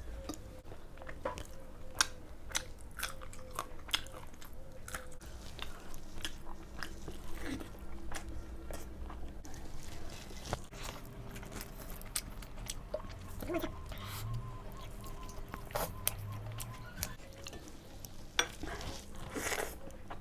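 A person chewing and biting crunchy food close to the microphone, with many short, sharp crunches at an uneven pace.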